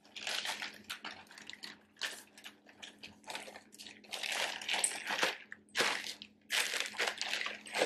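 Plastic packaging bag rustling and crinkling in irregular bursts as a handbag is handled and slid back into it.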